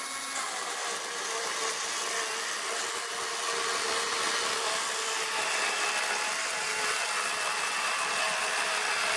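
Greenworks Pro 60V 18-inch brushless cordless chainsaw cutting through a 6x6 pressure-treated wooden post, its electric motor and chain running at a steady pitch under load.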